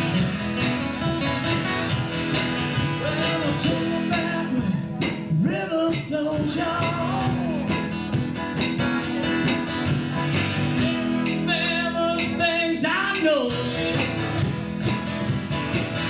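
Live band music: an acoustic guitar strummed steadily, with a man's voice singing lines now and then over it.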